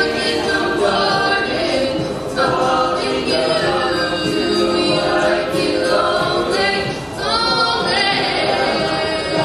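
An a cappella group singing, a female lead voice over layered backing voices with beatboxed percussion. A voice slides upward about seven seconds in.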